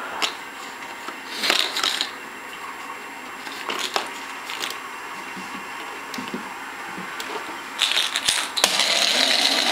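A plastic Easter egg knocked against a refrigerator door and shaken: a few short clatters, then a longer, louder spell of rattling near the end.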